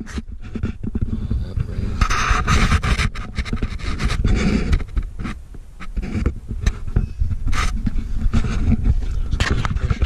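Irregular rustling, scraping and rubbing against a body-worn camera's microphone, a dense jumble of knocks and scrapes with a low rumble underneath, louder for a moment about two seconds in.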